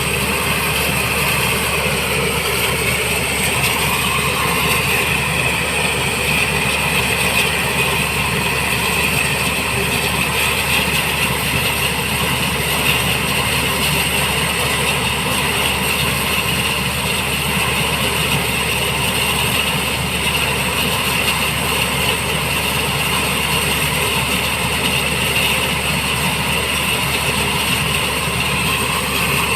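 Black Hawk helicopter running, a steady loud engine noise with a constant high whine over it.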